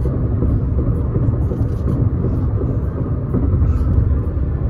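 Steady low road rumble inside a moving car's cabin.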